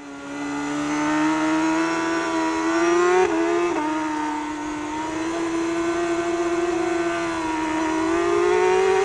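Kawasaki superbike's inline-four engine at high revs, heard close up from an onboard camera at racing speed. It fades in at the start, its pitch climbs slightly and then dips briefly about three seconds in. It holds steady after that and rises again near the end.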